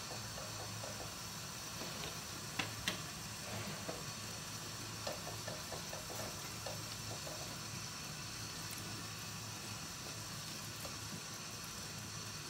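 Butter sizzling quietly as it melts in a nonstick wok, stirred with a wooden spatula that scrapes and taps the pan a few times in the first half. The stirring stops and only the steady sizzle is left.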